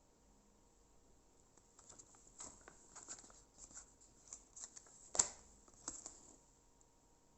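Rustling and light clicks of small product packets and paper being handled, with one sharper knock about five seconds in.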